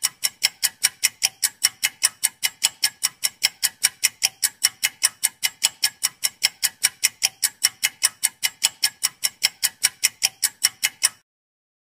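Clock ticking at an even pace, about four ticks a second, cutting off sharply about eleven seconds in: a quiz countdown-timer sound effect.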